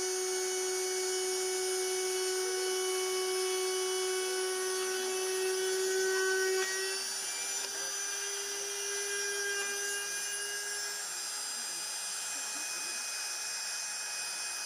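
Homemade CNC machine's small spindle motor running with a steady high whine while it cuts a wooden key tag. About six and a half seconds in, the pitch and loudness drop slightly.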